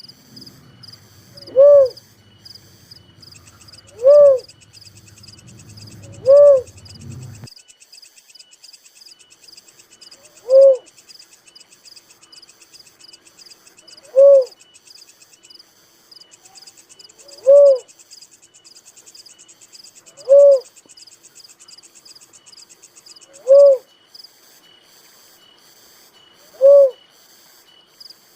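A dove gives single short, low hooting notes, one about every three seconds, nine in all. A steady high insect trill, like crickets, runs underneath, and a low rumble stops about seven seconds in.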